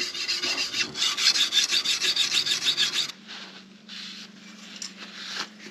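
A steel blade being sharpened by hand: rapid back-and-forth rasping strokes of the sharpening tool along the edge. About three seconds in the strokes stop, leaving a faint steady low hum and a few soft rubs.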